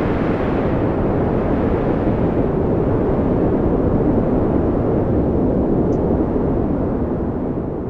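Storm wind blowing in a loud, steady rush, heaviest in the low end.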